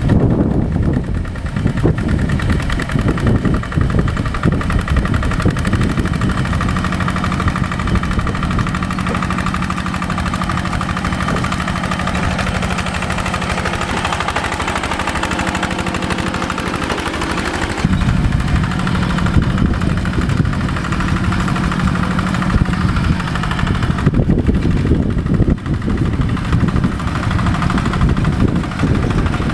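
Rice-paddy tractor's diesel engine running steadily with a rapid chugging beat. Its note sags slightly, then comes back louder about 18 seconds in.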